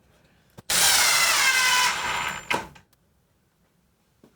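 Power drill driving a screw into the toolbox side: one run of about two seconds, the motor's pitch dropping as the screw bites in before it stops, then a couple of faint clicks near the end.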